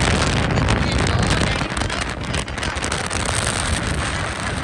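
Wind buffeting and crackling on a phone microphone while riding on a two-wheeler, with a steady low rumble of engine and road underneath.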